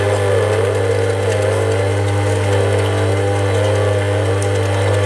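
Kenwood kMix stand mixer's motor driving its mincer attachment, grinding chunks of fatty pork on the coarsest plate as the meat is pushed down the feed tube. A steady hum with a whine that rises and falls in pitch.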